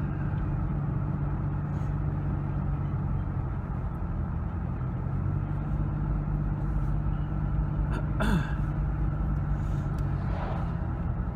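A car driving, its engine and tyre noise a steady low hum from inside the cabin, with a short falling sound about eight seconds in.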